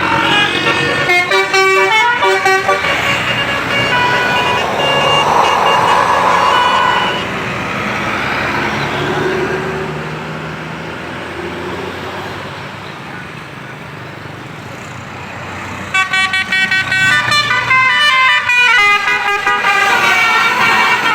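Basuri telolet musical bus horn playing fast runs of changing notes, some stuttering rapidly. It is loud for the first seven seconds, drops to quieter engine and traffic noise, then starts a new rapid run of notes about sixteen seconds in.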